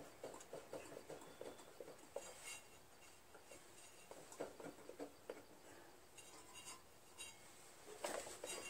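Faint, scattered small clicks and light metal clinks of hands working parts under a lawn tractor's frame, with a short rustle near the end.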